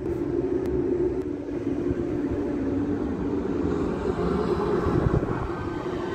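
ČD CityElefant (class 471) double-deck electric trains at a level crossing: one pulling away just after passing, and a second arriving and running past the crossing near the end, making a steady rumble.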